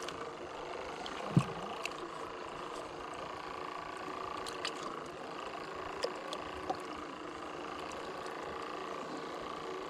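Distant motorboat engine on the lake droning steadily. A sharp knock sounds about a second and a half in, with a few light clicks later.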